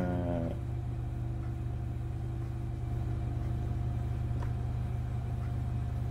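Steady low background hum with a few faint steady tones above it, unchanging throughout; a faint short tick about four and a half seconds in.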